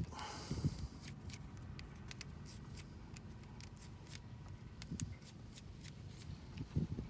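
Faint scattered clicks and ticks of hand work on small control wires and their terminal connector, with a soft knock about five seconds in.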